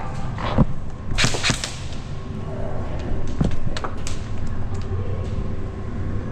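Airsoft game: irregular sharp snaps and knocks of airsoft shots and BBs striking plywood barricades. There is a cluster of loud cracks about a second in and two more hits around three and a half seconds, over a low hum in a large room.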